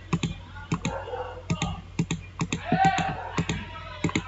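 Computer mouse button clicked repeatedly, about seven press-and-release pairs roughly half a second apart, each click setting the next point of a line being drawn. A short wordless murmur of voice comes about three seconds in.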